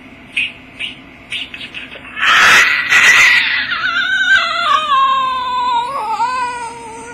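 Domestic cat, provoked by a hand swatting at its head, hisses loudly for about a second and a half, then lets out a long wavering yowl that slowly falls in pitch.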